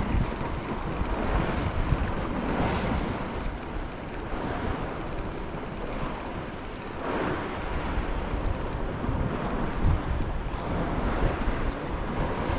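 Wind buffeting the microphone over the sea, with waves washing; the noise swells and eases with the gusts.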